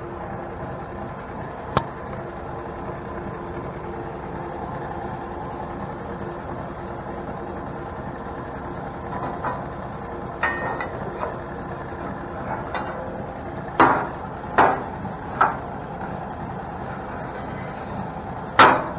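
Metal parts clanking and knocking against each other a few times, with three knocks in quick succession after about fourteen seconds and the loudest one near the end, over a steady mechanical hum.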